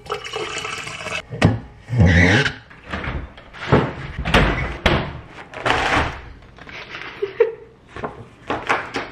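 Kitchen handling sounds. Water pours into a steel tumbler near the start, then a fridge door opens and shuts amid several thunks and knocks, and paper meal-kit bags rustle.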